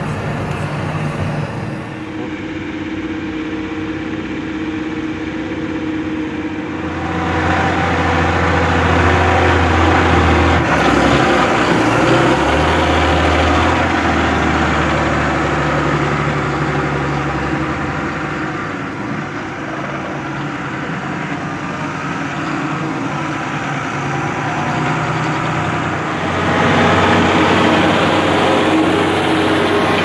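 The six-cylinder 6.8-litre diesel of a John Deere 6210R tractor runs steadily under load while pulling a five-furrow reversible plough through the soil. It gets louder about seven seconds in, and again near the end.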